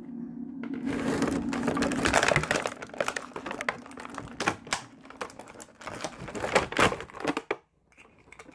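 Plastic and cardboard packaging of an action figure being handled and pulled open: irregular crinkling, rustling and clicking snaps. A low steady hum sits underneath for the first two seconds or so.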